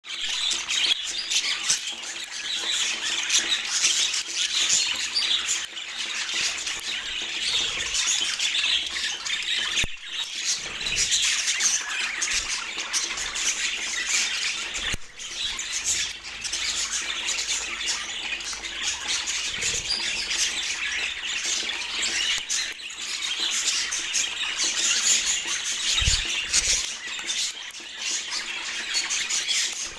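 Budgerigars chattering and warbling together, a steady stream of chirps, squawks and trills with no pauses.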